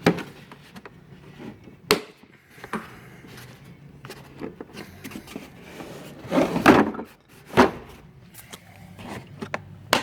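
Tools being handled in a tool box drawer: scattered knocks and clatters of hard tool pieces being picked up and set down, with a louder cluster of clattering about two-thirds of the way through.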